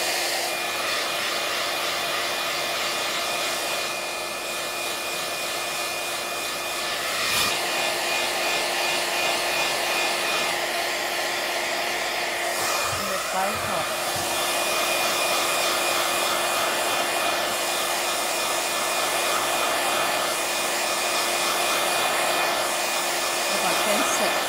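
Handheld iTeraCare wand running, its fan blowing warm air in a steady rush with a constant whine.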